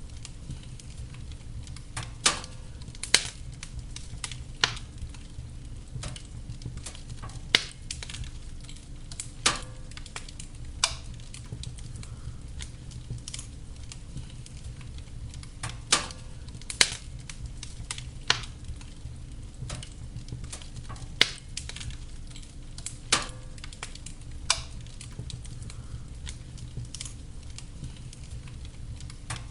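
Wood fire burning in a fireplace: a steady low rumble with irregular sharp crackles and pops, a few of them loud, spaced a second or two apart.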